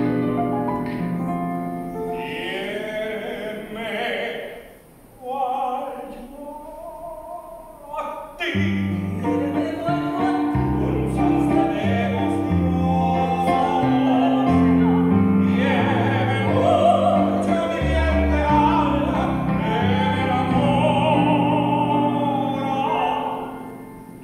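Soprano and tenor singing a romantic criolla duet in operatic style, their voices wavering with vibrato, over electric-piano accompaniment from a stage keyboard. The music briefly thins out twice in the first half before both parts come back in fully.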